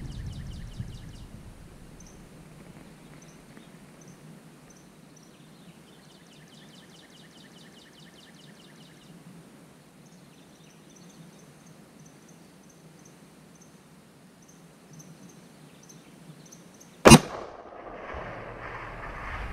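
A single shot from a Ruger American Predator rifle in 6.5 Creedmoor fitted with a muzzle brake: one sharp, loud crack about 17 seconds in, followed by a lingering echo. Before the shot there are only faint, high chirping trills.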